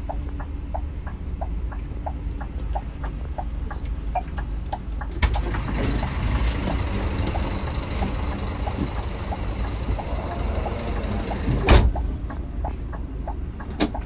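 Scania K360iB coach running at speed: a steady low engine and road rumble with a regular ticking about twice a second. A sharp click comes about five seconds in, and a short loud burst near the end, which could be an air-brake release.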